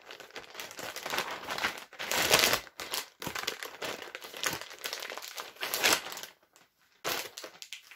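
Clear plastic packaging crinkling and rustling as a vacuum-sealed garment is pulled out of a zip-top plastic bag, in irregular handfuls. The loudest rustles come about two seconds in and again near six seconds, with a brief lull shortly before the end.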